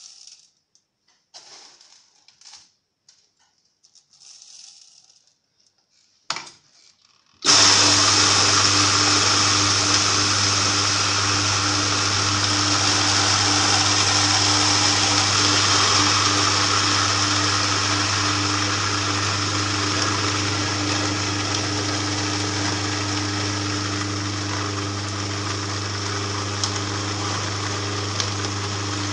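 Electric auger juicer grinding roasted cacao into paste. After some light handling and a click, its motor switches on about seven seconds in and runs with a steady hum and grinding hiss.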